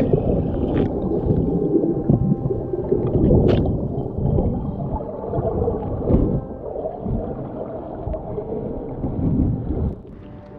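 Muffled gurgling and churning of water picked up by a camera held underwater, a dense low rumble with a sharp click about three and a half seconds in.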